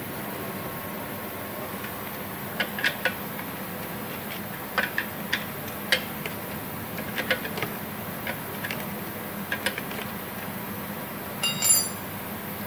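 Scattered light taps and clicks as a hand tool and a sheet of cardboard are handled at an air compressor's oil drain bolt, with a brief ringing metallic clink near the end, over a steady background hum.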